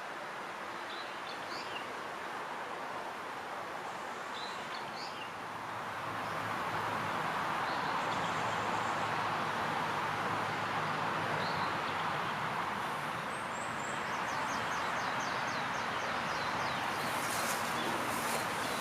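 Steady rushing outdoor noise that grows louder about six seconds in, with a few short high chirps and a quick run of high ticks partway through.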